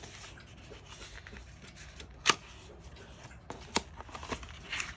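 Hands handling a paper notebook with a card cover next to a clear plastic cover: soft rustling and sliding, with two sharp clicks, one a little over two seconds in and a louder one near four seconds.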